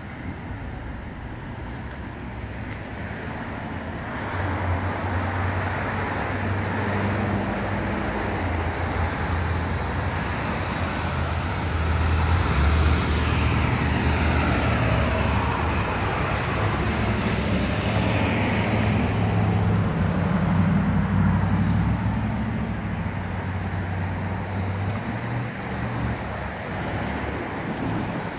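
Road traffic with a low engine hum that comes in about four seconds in, is loudest around the middle, and eases off near the end.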